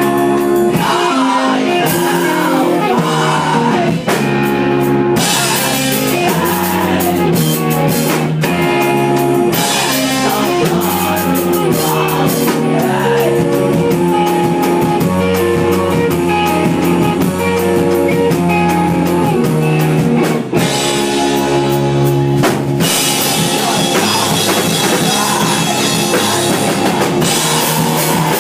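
Emo rock band playing live: electric guitar and a drum kit, with a singer's vocals into a microphone over them.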